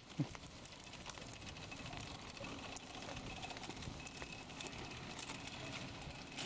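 Faint steady noise of a baby stroller being pushed along a concrete sidewalk, its small wheels rolling with scattered light ticks and rattles, together with footsteps. A brief falling squeak comes just at the start.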